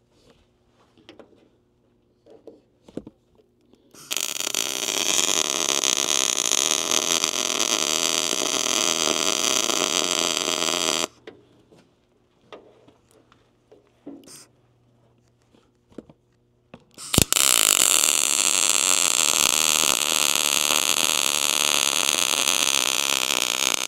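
Wire-feed (MIG) welder arc crackling steadily as a steel chain is welded onto a sheet-metal toolbox. There are two long welds of about seven seconds each, the first starting about four seconds in and the second about seventeen seconds in, with light clicks and clinks between them.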